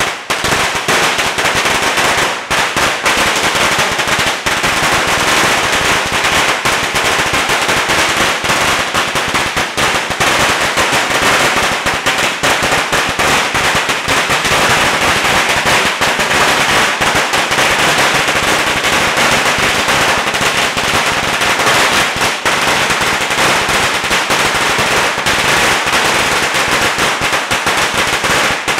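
A 100,000-shot string of Chinese firecrackers going off: a loud, unbroken, rapid crackle of bangs with no pause.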